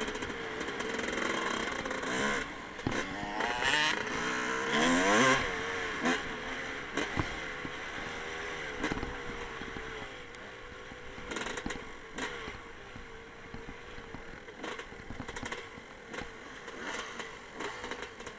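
Honda dirt bike's engine heard from on board while riding an off-road trail, revving up and down, with the pitch climbing sharply about four to five seconds in. Afterwards it runs lower and quieter, with scattered knocks and rattles.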